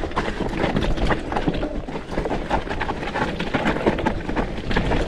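Mountain bike clattering and rattling over a rough trail, a dense run of knocks and clicks over a steady rumble.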